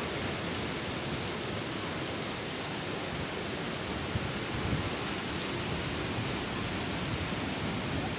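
Surf breaking on a rocky beach: a steady rushing noise of waves, with a couple of faint bumps about four and a half seconds in.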